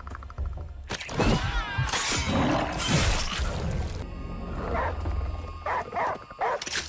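Film soundtrack: dramatic music over a steady low drone, with a sudden loud hit about a second in and further heavy hits, mixed with a creature's growls.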